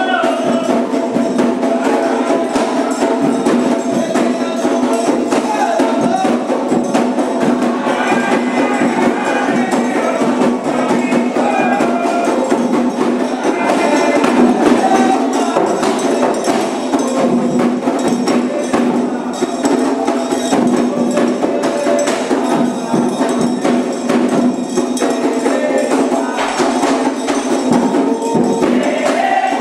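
Candomblé ritual music: steady percussion with drums and sharp struck beats, and voices singing over it.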